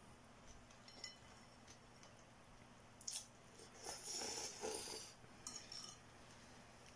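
Spicy noodles being slurped into the mouth: a short slurp about three seconds in, then a longer slurp from about four to five seconds, with a small one just before six seconds. A few light mouth or utensil clicks come earlier, over a faint steady hum.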